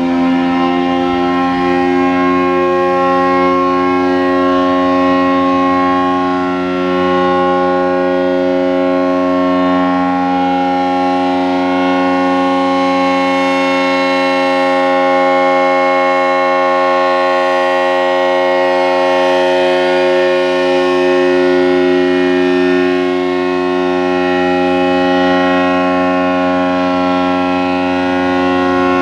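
ACA Allertor 125 electromechanical warning siren sounding its steady Alert tone, a chord of several held pitches that creeps up slightly at first and then holds level. It is running slow, apparently because of a short in its motor windings.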